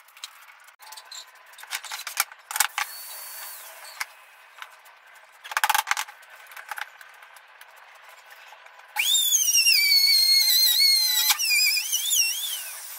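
Scattered clicks and knocks of tools and boards being handled, then about nine seconds in a palm router starts with a sudden loud high whine. Its pitch drops and wavers as the bit cuts a hole design into the plywood, and it dies away near the end.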